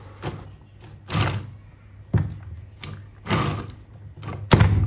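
Freemir hand-cranked manual chopper being turned, its blades chopping whole red chillies in the bowl: short rough grinding bursts with knocks, about once a second. The going is hard because the chillies are tough and were not cut first.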